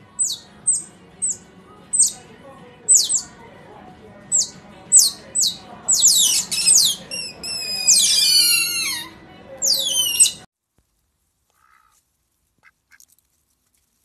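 Otters squeaking: a string of short, high-pitched calls, then a quicker run of squeals that fall in pitch. The calls stop suddenly about ten and a half seconds in.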